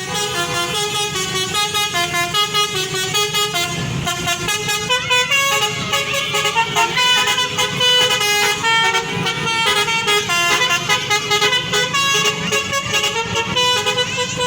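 A bus's basuri musical air horn playing a fast melody, its notes stepping up and down several times a second.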